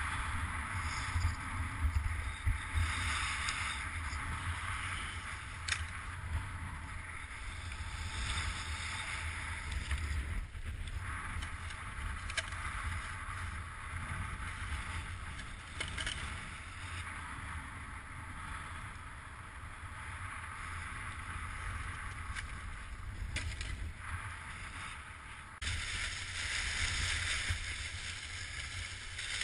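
Strong wind buffeting the microphone, a steady low rumble over a rushing hiss that swells and fades, during kite skiing in storm-force wind. The sound jumps abruptly louder near the end.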